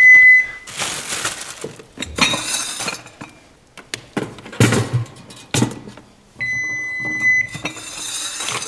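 Kitchen things being shifted about on a countertop, clinking and knocking: a toaster being moved and a cupcake-shaped jar picked up. Two steady high electronic beeps, each about a second long, sound at the very start and again about six and a half seconds in.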